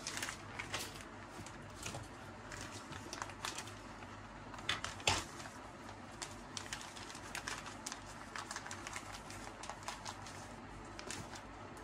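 Thick strawberry milkshake poured from a blender jug into a glass mug, a soft pour under scattered faint clicks and taps, with two louder taps about five seconds in.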